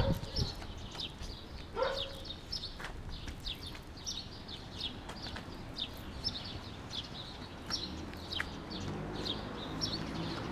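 Small birds chirping: many short, high chirps repeating throughout, over a low background of street noise.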